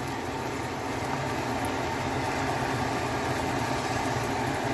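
A steady machine hum with a hiss, running evenly without a break.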